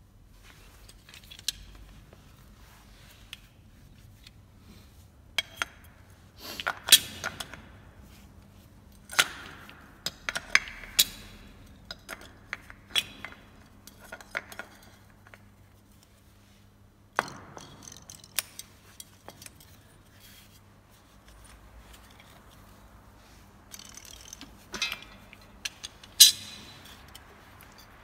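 Scattered sharp clicks, clinks and knocks of metal parts being handled: a diesel fuel filter housing with its fuel lines turned over in gloved hands and set against the floor, among loose tools. The loudest knocks come about seven seconds in and near the end.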